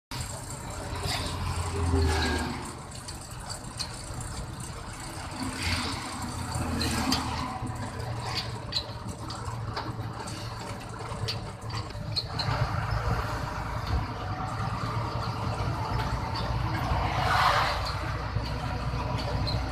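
Engine and road noise heard inside a moving vehicle on a highway: a steady low rumble with scattered clicks and rattles, swelling louder about two seconds in.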